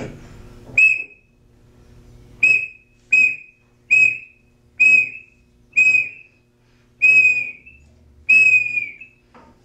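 A whistle blown in eight short blasts at one high pitch, unevenly spaced, each tailing off with a slight drop in pitch.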